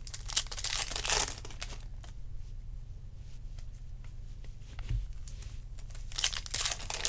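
Trading card pack wrappers being torn open and crinkled, in two bursts: one in the first second or so and another near the end. A low steady hum runs underneath.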